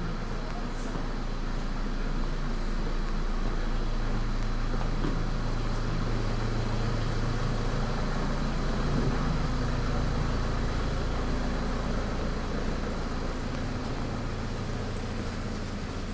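A motor vehicle's engine running close by over steady street noise, its hum growing louder towards the middle and fading again.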